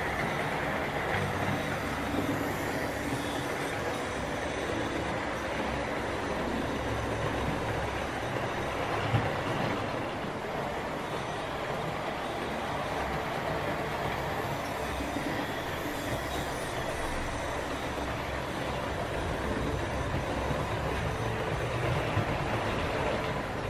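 OO gauge model of an LMS Princess Coronation Class steam locomotive and its coaches running on a model railway layout: a steady rumble and whir of the motor and wheels on the track, with one sharper click about nine seconds in.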